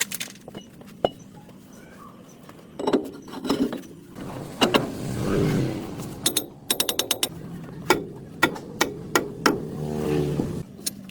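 Hand work on heavy metal parts: a series of sharp metallic knocks and clicks, with a quick run of clicks about six seconds in and a low steady hum shortly before the end.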